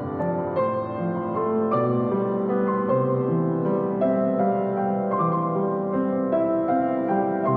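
Background music: a gentle piano tune with chords, played at an even level.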